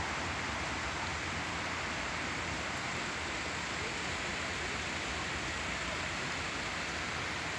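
A steady, even hiss of outdoor background noise with no distinct sounds standing out.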